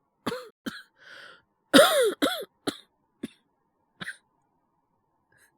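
A voice actor's acted fit of coughing, a character with a bad cold: a run of short, harsh coughs, loudest about two seconds in, thinning out to single coughs.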